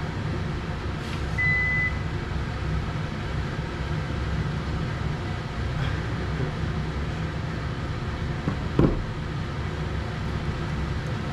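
Steady low hum of a kitchen ventilation fan, with a short high electronic beep about one and a half seconds in and a brief burst of voice near the end.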